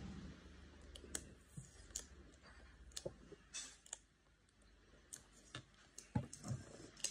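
Faint, irregular clicks and taps of fingers handling and easing open the lid of a pistol box.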